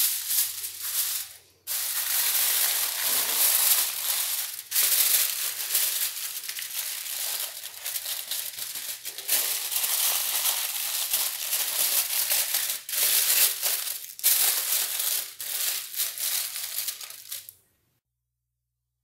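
A sheet of aluminium foil crinkling and rustling as it is pressed and crimped around the rim of a baking dish, with a few short pauses. It cuts off suddenly shortly before the end.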